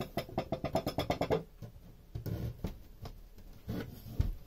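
Hand-tool and handling sounds from taking off a screwed wall hatch panel: a fast run of clicks for about a second and a half, then scattered light knocks and rubbing.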